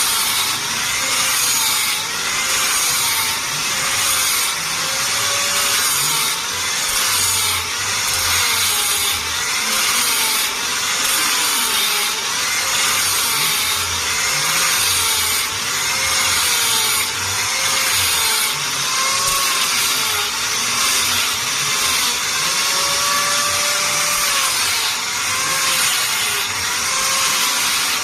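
Power tool working wood in repeated back-and-forth strokes, about one a second, its motor pitch dipping and rising with each stroke as it bites into the wood.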